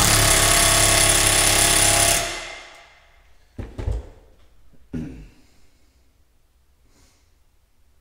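Milwaukee cordless impact wrench hammering as it runs down the nut on a hydraulic cylinder's piston rod, for about two seconds before stopping. A few short knocks follow.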